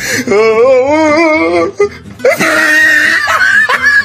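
A voice wailing with a wavering, trembling pitch for about a second and a half, then, after a short break, a higher, strained cry with a rough noisy edge.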